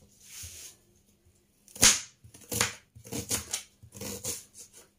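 Knife cutting an onion held in a metal-tined onion holder on a plastic cutting board. A single sharp knock comes a little under two seconds in, the loudest sound, and is followed by a quick run of short cuts, about three or four a second.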